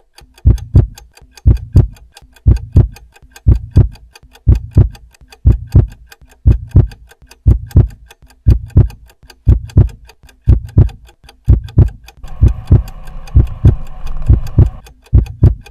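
A deep double thump repeating evenly about once a second, like a heartbeat, each beat with a sharp click on top. A faint hiss joins about twelve seconds in and fades out shortly before the end.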